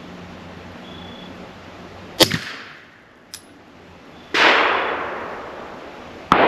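Three gunshots about two seconds apart, each followed by a decaying ring; the first is the sharpest and loudest.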